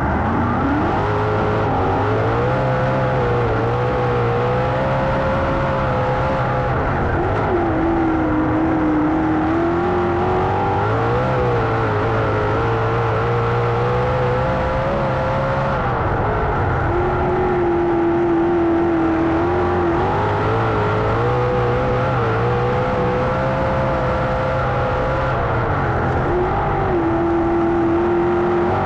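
A 410 sprint car's V8 at racing speed, heard onboard, its pitch climbing and falling in a repeating cycle about every nine seconds as the driver gets on the throttle down the straights and backs off into the turns, three times over.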